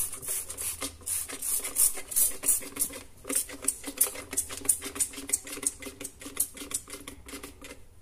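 Hand trigger spray bottle squirted over and over in quick succession, a few squirts a second, each a short hiss; the squirting stops near the end.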